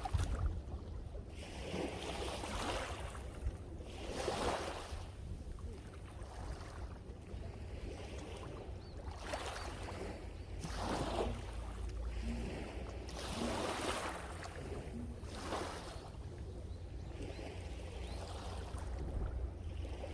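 Ocean waves washing in, each hissing surge rising and fading every couple of seconds, over a steady low rumble of strong wind on the microphone.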